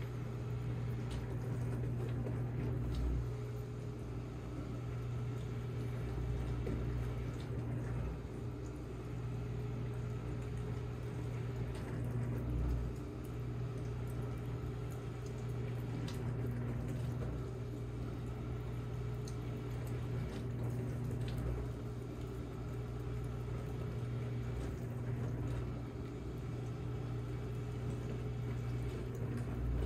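Steady low hum of a running household appliance with a watery rushing noise over it, and a few faint clicks.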